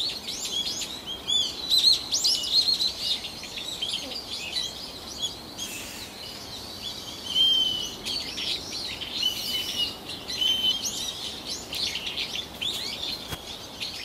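Several small birds chirping together in a dense, continuous chorus of short high calls, with a few longer held whistled notes.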